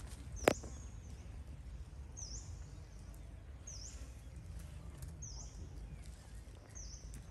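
A bird giving a short high chirp over and over, about once every second and a half, over a steady low background rumble; one sharp click about half a second in.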